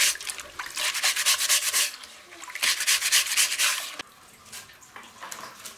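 A brush scrubbing the fuzzy underside of loquat leaves, rapid back-and-forth strokes in bursts of about a second, three times, then fainter rubbing from about four seconds in. This is the brushing-off of the fine hairs before the leaves are washed and boiled.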